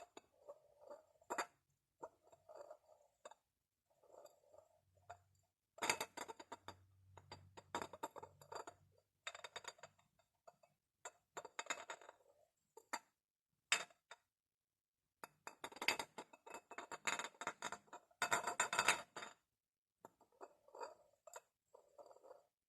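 Glass bottles tapped and clinked in irregular strokes, with two longer runs of rapid tapping, one a few seconds in and one past the middle, and quieter handling sounds between them.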